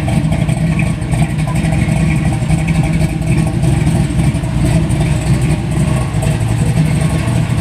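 Muscle car engine idling steadily.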